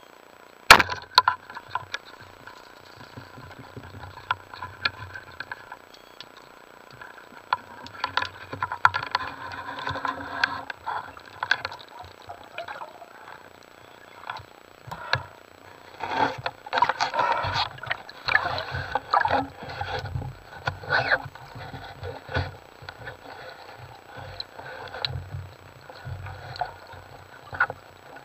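Rubber-band speargun firing underwater with one sharp crack about a second in, then a long run of irregular clicks, knocks and rustling from the gun, line and diver's gear as the speared fish is brought in, busiest about two-thirds of the way through.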